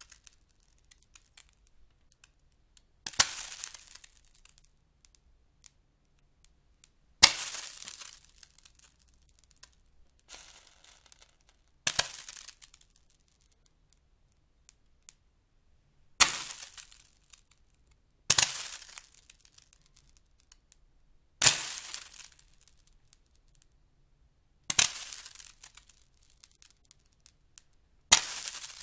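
Water thrown onto a very hot surface and flashing to steam. Each take is a sudden hissing burst that fades into a crackling fizz over a second or two. There are about nine takes a few seconds apart, one of them much weaker.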